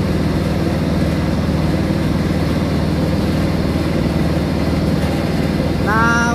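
Steady, loud machinery drone of equipment running in a water-treatment filter room: an unchanging low hum made of several even tones. A man's voice starts near the end.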